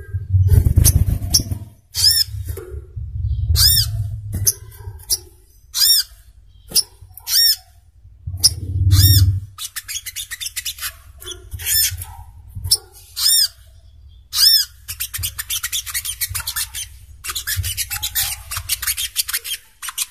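Little spiderhunter calling: a string of sharp, high, arched single notes, turning into quick chattering runs about fifteen seconds in. A low rumble comes and goes underneath, loudest near the start and around nine seconds in.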